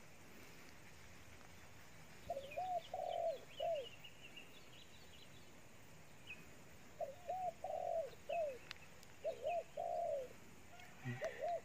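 Spotted dove cooing: four phrases of three or four rounded, arching coos, a few seconds apart, with faint high chirps of small birds between them.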